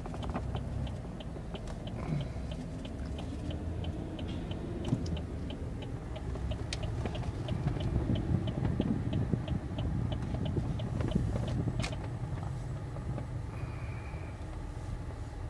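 Car interior rumble of engine and tyres while driving, with a turn-signal indicator ticking evenly a few times a second for roughly the first ten seconds, through a turn at an intersection.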